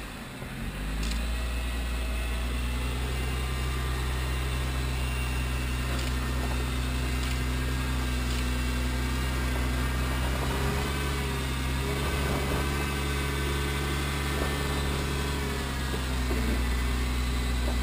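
Jeep Wrangler JK engine running at low, steady revs as the Jeep crawls slowly over rocks.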